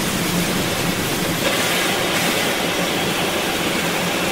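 Disneyland Railroad steam train at a station: a steady rumble with hiss over it, the hiss growing louder about a second and a half in.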